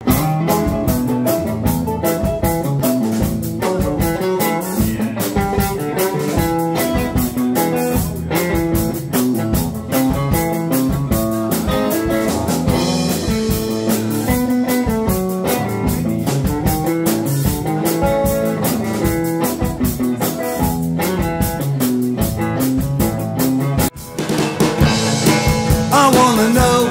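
Small roots band playing live: cigar-box guitar, archtop guitar and mandolin over a drum kit keeping a steady beat. About 24 seconds in it cuts abruptly to a different song.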